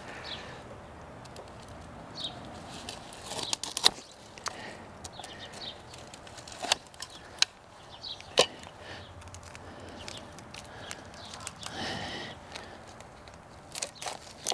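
Long-handled loppers cutting woody rose canes at the base of the bush: a few sharp snaps and clicks spaced through, with a brief rustle of branches being handled near the end.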